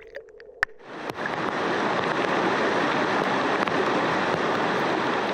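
A sharp click, then fast-flowing creek water rushing over rocks fades in about a second in and holds steady.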